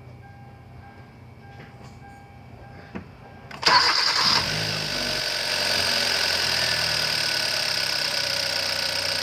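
A 2012 Hyundai Accent's 1.6-litre four-cylinder engine starting a little over a third of the way in after a few faint clicks, then settling into a steady idle. It is running on four new ignition coils fitted to cure a cylinder misfire, and it idles quiet and stable, with no misfire.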